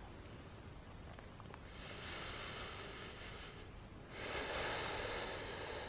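A person breathing slowly and deeply: two long, hissing breaths, the first about two seconds in and a louder second one just after four seconds.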